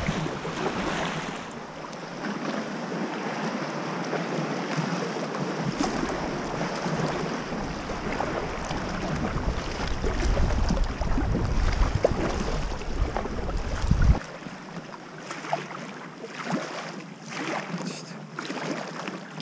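Water sloshing and lapping around a kayak being paddled, with paddle strokes splashing. From about six seconds in, a low rumble of wind on the microphone joins it and cuts off suddenly around fourteen seconds. After that the water is quieter, with a few short splashes and drips from the paddles.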